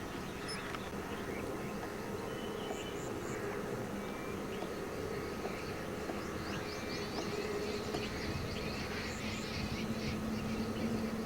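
Outdoor ambience of many short, high bird chirps scattered throughout, over a steady low hum.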